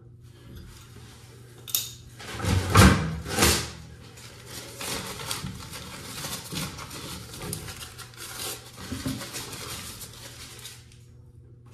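Small metal clinks, knocks and rustling from hands and a tool working the packing nut on a sink's angle-stop shutoff valve, tightening it to stop a leak at the stem. The loudest knocks come about three seconds in, then lighter clicking and rustling go on until near the end.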